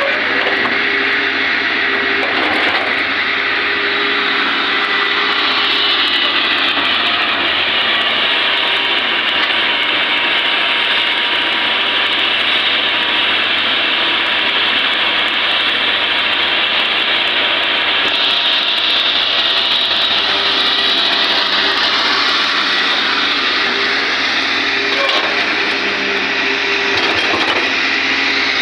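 Hitachi ZX200 excavator running steadily at work, its engine and hydraulics making a loud continuous noise with a few steady tones that sweep slowly up and down now and then.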